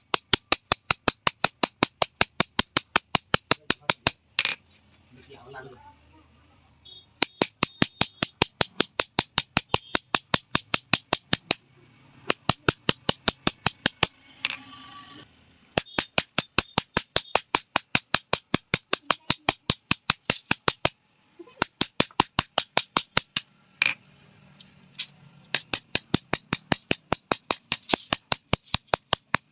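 A hand hammer striking metal in quick, even taps, about five a second, in runs of several seconds broken by short pauses and a few single heavier knocks.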